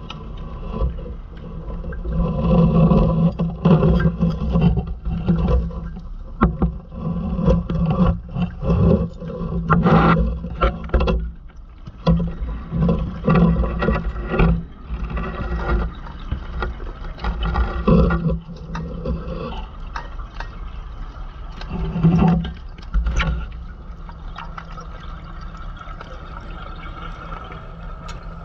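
Underwater sound of a scuba diver's breathing: exhaled bubbles from the regulator rush and bubble in bursts every few seconds over a steady low rumble, a few sharp clicks among them. The bursts die down in the last few seconds.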